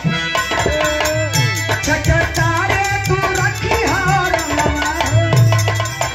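Live Indian folk stage music: hand drums keep a steady repeating beat under a melody line that slides up and down in pitch.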